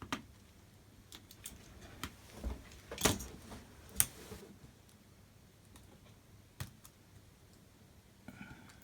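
Small hard parts and tools handled on a workbench: a few scattered clicks and light taps, the loudest about three and four seconds in, with another a little later and a soft scrape near the end.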